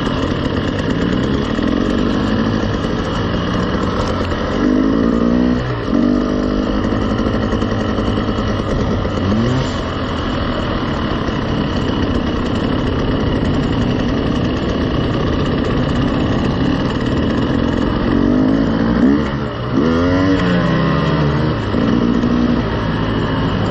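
KTM 300 two-stroke dirt bike engine running at low trail speed, the revs rising and falling several times as the throttle is worked.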